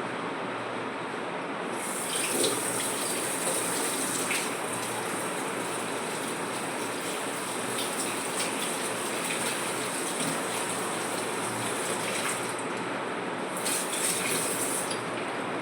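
Heavy rain pouring steadily, a continuous rushing hiss of water.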